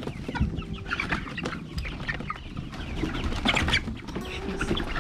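A flock of chickens clucking and chirping in short, overlapping calls, busiest about three and a half seconds in.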